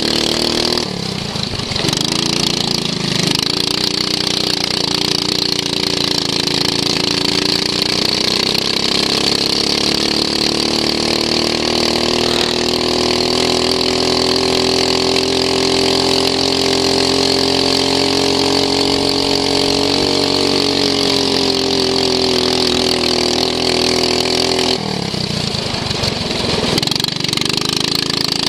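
Racing lawn mower's engine running hard at high revs, the pitch easing up and down slowly; it drops off briefly about a second in and again a few seconds before the end, as the throttle is lifted, then climbs back up.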